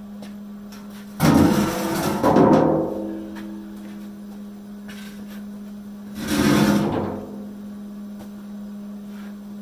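Steel loader bucket being dragged and tipped by hand on concrete, giving two bouts of booming scraping and clanking, one about a second in and one about six seconds in, over a steady low hum.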